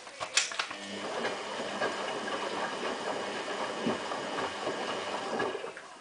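Samsung WF8804RPA front-loading washing machine turning its drum in the delicates main wash: a couple of clicks, then water sloshing and the drum motor running for about five seconds. It stops shortly before the end, a gentle wash movement with a high water level.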